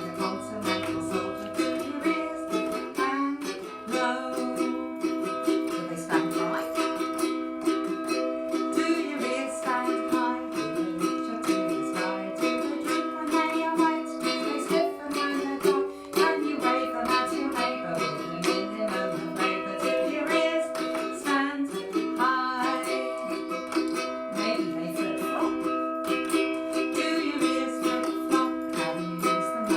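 Ukulele playing a steady strummed chord accompaniment.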